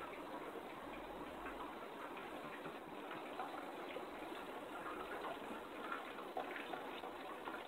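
Water trickling and bubbling steadily, with a dense patter of small ticks.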